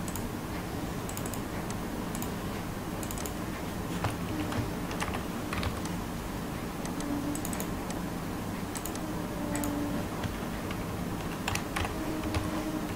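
Typing on a computer keyboard: irregular runs of key clicks over a steady low background hum.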